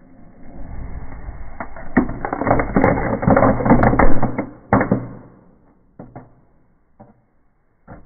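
Firework in a Smarties tube burning: a rushing spray of sparks builds over the first two seconds into a dense run of crackling pops and bangs, loudest about four seconds in, then dies away to a few scattered pops.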